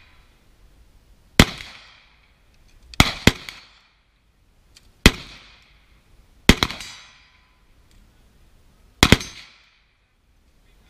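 Carbine shots fired singly at an unhurried, uneven pace, about six or seven in all, with two close together about three seconds in and another pair about six and a half seconds in. Each sharp crack trails off in a short echo.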